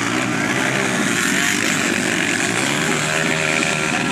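Several motocross dirt bike engines revving hard as the bikes race past, the pitch rising and falling with the throttle.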